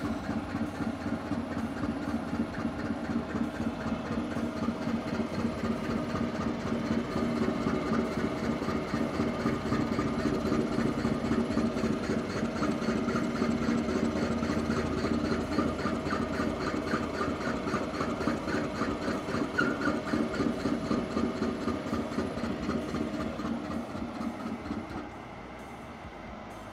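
Metal lathe running as a cutter in the chuck cuts worm-gear teeth into the rim of a metal disc, with a fast, even cutting chatter over the steady machine hum. Near the end the sound drops as the cutting stops.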